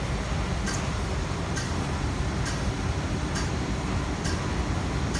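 Steady low hum around a parked MTR S-Train metro train, with a sharp tick repeating slightly faster than once a second.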